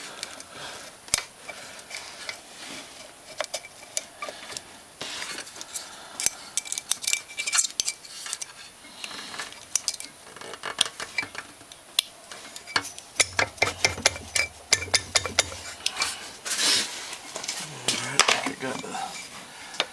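Irregular light metal clicks and scrapes as a steel cylinder is rocked and eased down over a piston while a small screwdriver presses the piston rings into the bore, the rings catching on the cylinder's lower edge.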